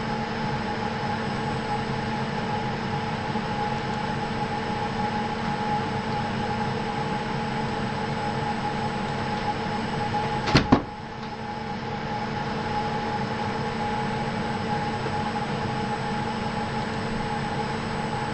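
Steady hum of a powered-up CNC milling machine standing idle, with a few steady tones in it. There is one sharp knock about ten and a half seconds in, after which the hum drops briefly.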